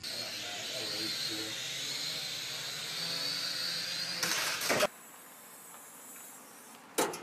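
Small toy quadcopter's motors and propellers whining with a steady high hiss. About four seconds in a loud crash lasts around half a second as it goes down.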